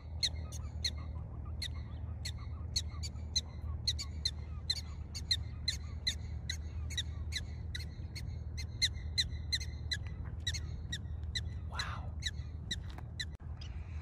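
Prairie dog giving a rapid series of short, high barking calls, about three a second, over a steady low rumble.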